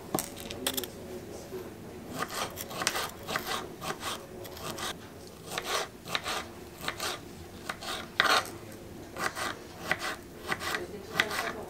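A small kitchen knife cutting strawberries on a wooden cutting board: an irregular run of short knife strokes and taps against the wood, several a second.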